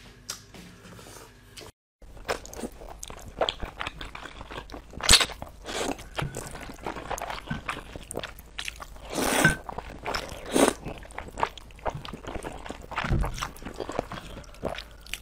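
Close-miked eating sounds: noodles being slurped up off chopsticks and chewed, with many short wet smacks and a few longer slurps. The sound drops out briefly about two seconds in.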